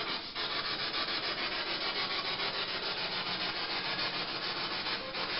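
Steady, even hiss of background noise with no voice over it.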